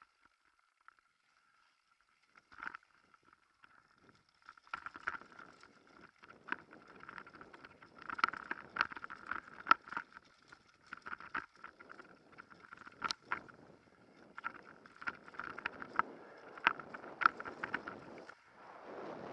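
Mountain bike and the rider's gear rattling and knocking over a rough dirt singletrack, with many sharp clacks over a low rumble. Nearly quiet at first, the rattling starts about four to five seconds in and stays busy, with a faint steady high hum underneath.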